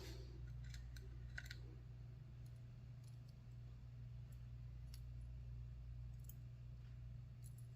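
Faint, scattered small clicks of a Lockwood 334B45 lock's pins and springs being loaded back into the rear of the lock by hand, over a steady low hum.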